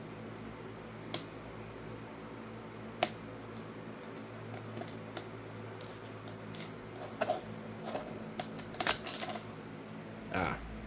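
Scattered light plastic clicks and taps from 3D-printed comb parts being handled, sparse at first and then a denser run of clicks in the second half, ending in a short scrape, over a steady low hum.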